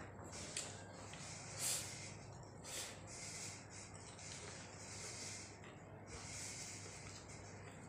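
Close-miked eating sounds of someone eating rice and curry by hand: faint chewing and mouth noises with short hissing breaths through the nose, a few sharper, louder bursts in the first three seconds.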